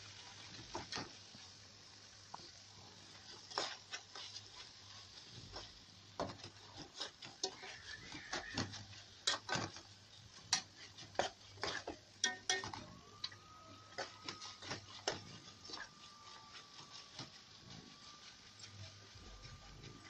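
Metal spatula scraping and clacking against a large metal pan in irregular strokes, stirring frying chicken pieces and sliced onions over high heat, with a faint sizzle beneath.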